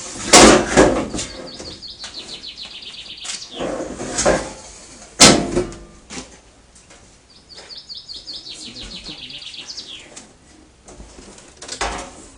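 Galvanised sheet-steel trailer panels clattering and knocking as they are handled, with a sharp loud bang about five seconds in and more knocks near the start and end. Between the knocks a bird sings two fast high trills.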